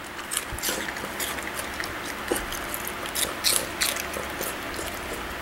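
Small dog moving about close by and handling its toys, making irregular light clicks and rustles, a few sharper ones around the middle.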